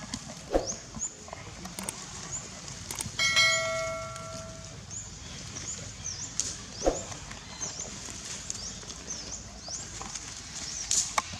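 Repeated short, high chirps throughout, with a single ringing metallic ding about three seconds in that fades over a second or so.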